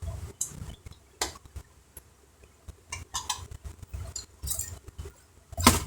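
Irregular small clicks, taps and scrapes of hands handling plastic and metal laptop parts, with a louder clatter near the end.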